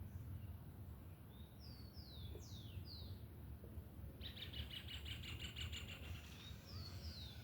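Birds chirping: a few short, quick downward-sliding chirps, then a rapid trill lasting about two seconds just past the middle, then two more chirps near the end, over a faint low rumble.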